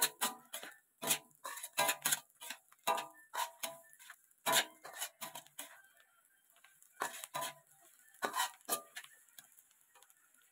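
Metal spatula clinking and scraping against a stainless steel wok while stir-frying vegetables: irregular metallic clinks, some briefly ringing, with a short lull a little past the middle and again near the end.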